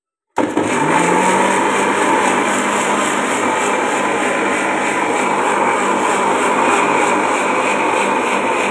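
Electric mixer grinder switched on about a third of a second in: its motor spins up with a short rising hum, then runs steadily at full speed, blending coriander leaves, ginger, lemon and water into a green juice in its steel jar.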